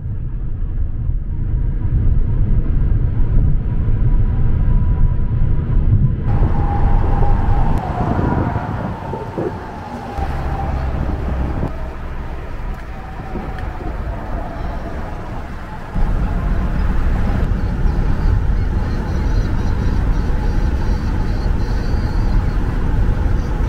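Steady low rumble of road and wind noise inside a moving car, cut together from several driving clips. A wavering high tone runs for a few seconds about a quarter of the way in.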